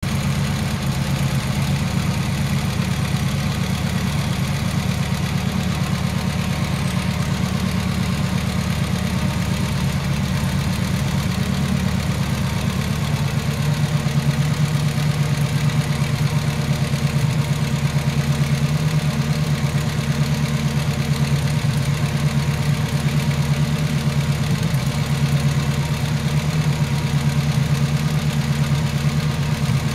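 Brantly B-2B helicopter's Lycoming four-cylinder piston engine idling steadily during start-up, with the main rotor turning slowly. The engine note gets a little louder about halfway through.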